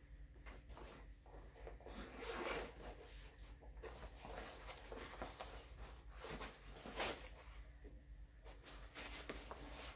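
Nylon camp-chair carry bag being unzipped and opened by hand: faint fabric rustling and zipper runs, with a short sharp click about seven seconds in.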